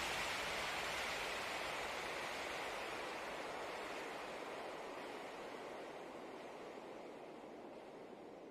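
Steady, even rushing noise with no distinct events, fading out gradually.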